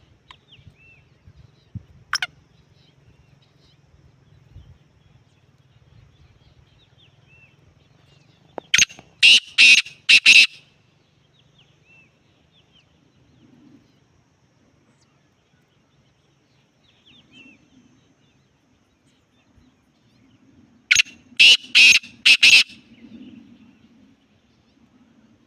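Black francolin calling twice, about twelve seconds apart, each call a loud run of about five quick notes. Faint chirps of small birds come in between.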